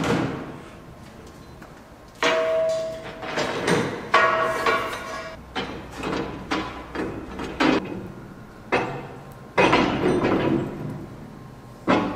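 Irregular metal clanks and knocks, about a dozen, some followed by a brief metallic ring: steel parts and tools being struck or handled on a workbench.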